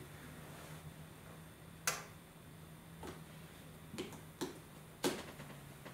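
Quiet room tone with a steady low hum and a handful of short, sharp clicks at uneven intervals; the loudest come about two seconds in and about five seconds in.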